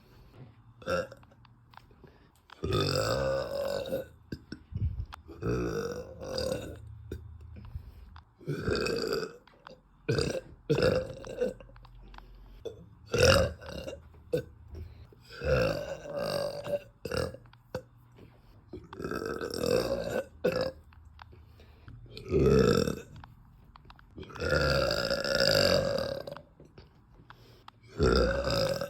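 A woman burping over and over, about a dozen burps in a row with short pauses between, some brief and some drawn out, the longest lasting about two seconds near the end. The burps come from gas built up after drinking carbonated soda.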